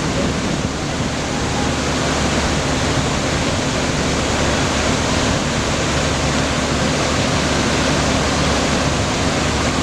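Rushing floodwater: a loud, steady roar of fast-moving water that does not let up, with a faint steady low hum beneath it.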